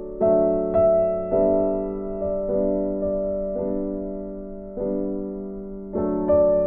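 Background music: a slow, gentle piano melody, single notes struck and left to fade, about one or two a second.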